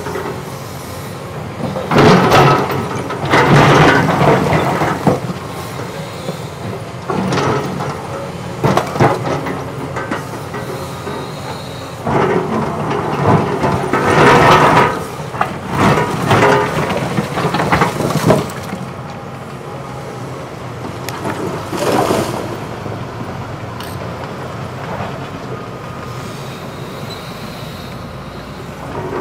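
Caterpillar 320E hydraulic excavator working concrete rubble: the engine runs steadily while the steel bucket scrapes, grinds and knocks broken concrete slabs, in loud bursts a few times.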